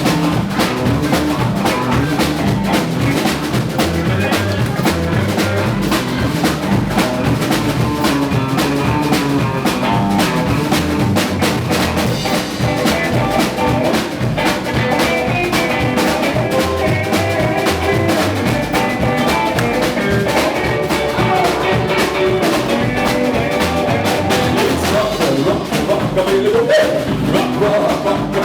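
Live band playing an up-tempo dance number, with the drum kit keeping a steady beat under the other instruments.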